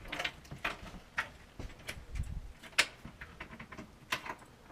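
Scattered light clicks and knocks, irregularly spaced, with a low thump about two seconds in and a sharper click shortly after.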